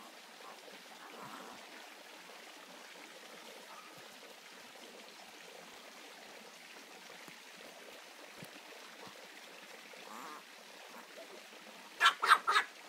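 Old English Sheepdog puppies at play: only faint background for most of the time, then near the end a quick run of about five sharp yaps.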